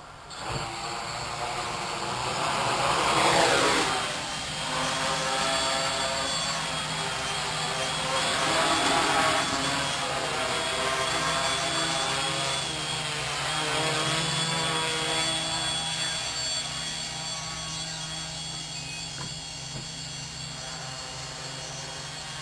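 Quadcopter's four brushless motors and propellers spinning up about half a second in, then buzzing through takeoff and hover, their pitch rising and falling as the auto-level flight controller keeps changing motor speeds to hold the craft level under an unbalanced load.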